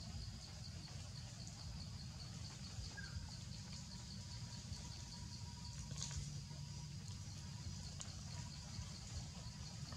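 Forest ambience: insects trilling in a steady high band over a low rumble, with a couple of faint clicks about six and eight seconds in.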